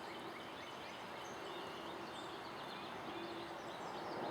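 Steady outdoor background noise with faint, short bird chirps scattered throughout.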